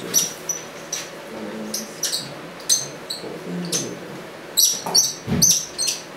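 Felt-tip marker squeaking on a whiteboard while writing: many short, high-pitched squeaks at an irregular pace, one for each stroke of the letters.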